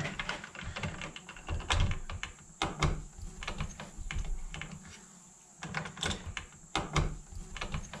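Irregular light clicks and taps of a light switch being handled and seated into a plastic electrical wall box.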